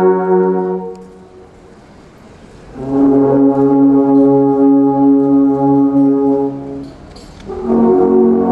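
Alphorn ensemble playing long held chords of several notes. One chord fades out about a second in. After a short pause a new chord swells in and is held for about four seconds, and another begins near the end after a brief break.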